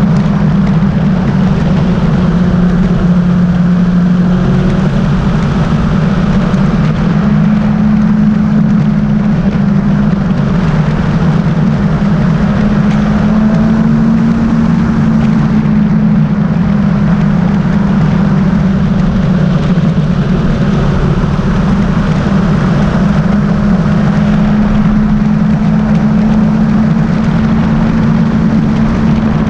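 Motorcycle engine running at a steady road speed, its note rising and easing slightly a few times, under heavy wind noise on the bike-mounted camera's microphone.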